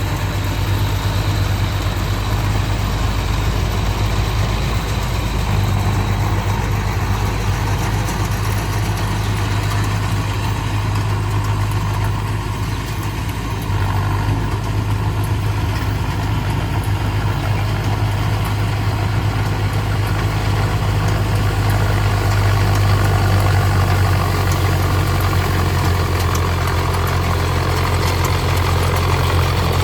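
Tractor diesel engine running steadily under load. It is driving a Nippy45 mini combine harvester attachment and gives a strong low hum throughout.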